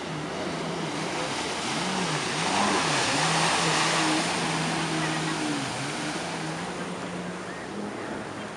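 Jet ski engines revving up and down, the engine note rising and falling unevenly, with the rush of water and spray swelling loudest about three to four seconds in as one jet ski speeds close past.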